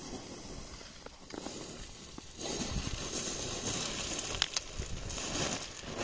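Footsteps crunching and sliding on loose scree, with small stones clicking and clattering. The crunching grows louder about two and a half seconds in.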